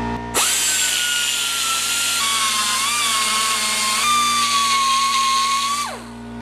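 Die grinder with a carbide burr spinning up to a high whine, then cutting into the edge of a freshly cut hole in steel plate to clean it up. The pitch drops about two seconds in as the burr bites, and the grinder spins down just before the end.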